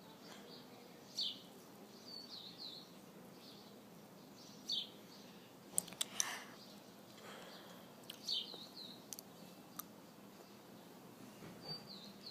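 Small wild birds chirping faintly, short high downward-sweeping chirps coming in scattered groups every few seconds, with a few sharp clicks around the middle.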